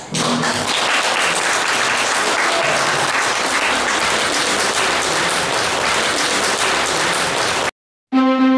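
Audience applauding steadily, cut off abruptly near the end. After a moment of silence, slow music begins.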